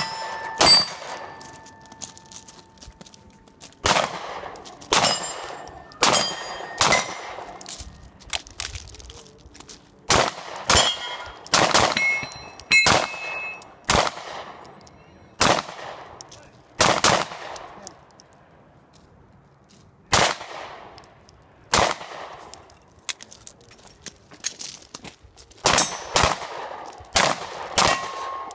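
Handgun fired in quick strings of shots, about twenty in all, each with a short echoing tail. There are two pauses of a couple of seconds between strings. After the first shot a hit steel target keeps ringing for about three seconds.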